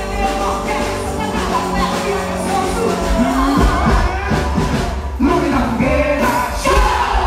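Music with a singing voice over a steady low beat, the accompaniment of a quadrilha junina performance.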